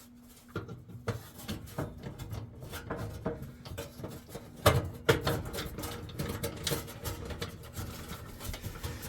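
Irregular clicks, knocks and light rattling of hands handling parts inside a gas range oven, with two sharp clicks about five seconds in, over a faint steady hum.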